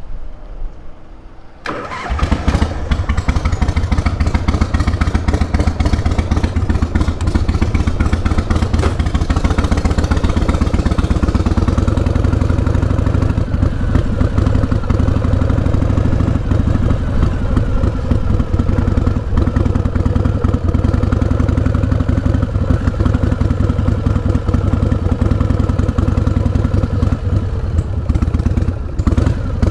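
Harley-Davidson Heritage Softail's 1340 cc Evolution V-twin engine starting about two seconds in, then running steadily.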